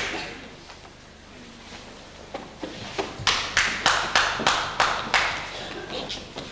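A sharp hand slap, then after a pause a run of about ten sharp hand slaps or claps, about three a second, ringing briefly in a large hall.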